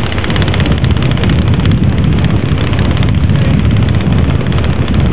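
Radio-controlled scale model aircraft's engine running steadily at low throttle as the model taxis.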